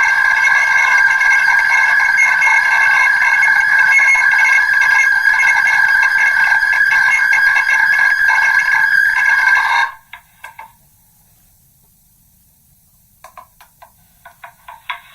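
Megaphone playing back a recording of a spoken phrase that has been re-recorded from megaphone to megaphone many times. The speech is worn down into a loud, steady drone with a few held tones. It cuts off suddenly about two-thirds of the way through, and a run of sharp clicks starts near the end.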